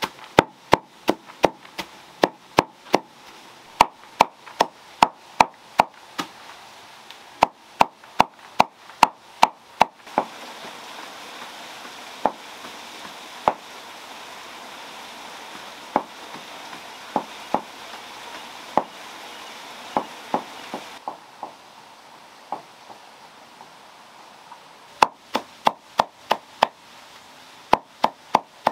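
A large knife chopping leafy greens in a woven bamboo tray, in quick runs of sharp strokes about two to three a second. In the middle stretch the strokes are fewer and scattered over a steady hiss, then quicken again near the end.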